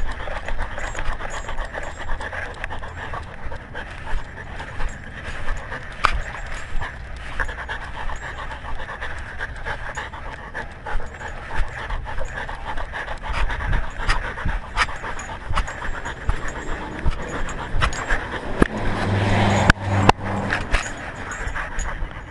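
A dog panting steadily right at the microphone, picked up by a camera worn on its collar, with frequent sharp clicks and knocks mixed in.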